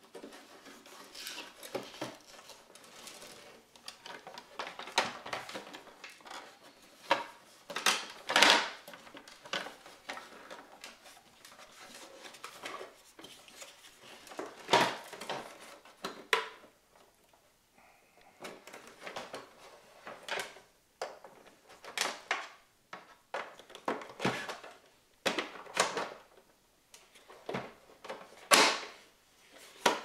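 Plastic housing panels of a Saeco Talea Ring Plus espresso machine being pried and pulled apart by hand: irregular clicks, knocks and creaks of the plastic parts, with a few sharper, louder clicks scattered among quieter rubbing and handling noise.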